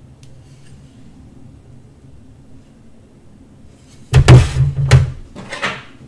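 Faint steady room hum, then about four seconds in a plate is set down and slid across a stainless-steel worktop: a sudden, loud run of scrapes and knocks lasting nearly two seconds.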